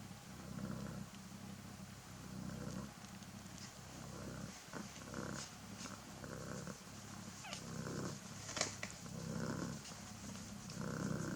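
Cat purring steadily in a rhythm that swells and fades about once a second, while kittens nurse. A few brief sharp clicks fall in the middle.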